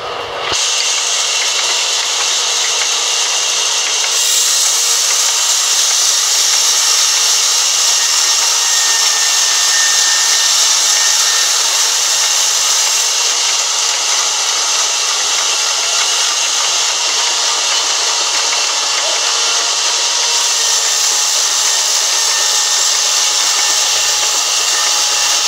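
A sawmill's large vertical band saw ripping lengthwise through a log: a steady, loud hiss of the blade cutting wood, growing sharper about four seconds in.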